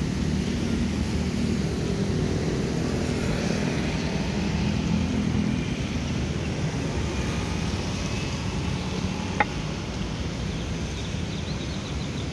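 Steady road traffic: cars and motorbikes passing, with a low engine hum and tyre noise. One short, sharp sound stands out about nine and a half seconds in.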